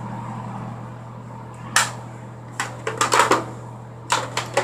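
Sharp clicks and clatters of small makeup items being picked up and set down on a counter, in quick clusters through the second half, over a steady low hum.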